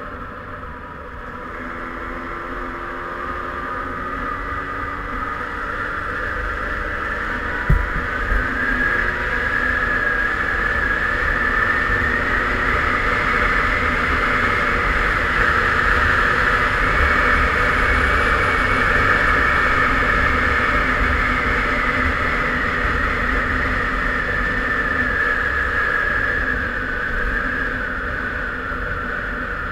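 Derbi Senda Xtreme 50's two-stroke 50 cc engine pulling the bike along the road, its high whine rising slowly over the first dozen seconds, holding, then easing off near the end. Wind rumbles on the microphone throughout, with a brief knock about 8 seconds in.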